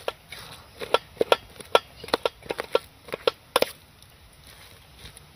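Metal spoon knocking and scraping against a stainless steel tray while breaking up wood apple pulp: a quick, uneven run of sharp clicks over the first three and a half seconds, then it stops.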